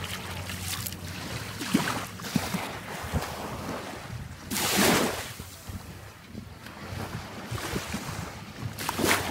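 Wind buffeting the microphone over surf at the water's edge, with louder rushes of noise about halfway through and again near the end.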